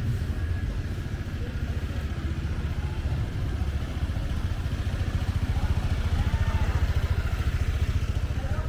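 Busy street traffic: the engines of vehicles and motorcycles running and passing make a steady low rumble, which grows somewhat louder about five seconds in.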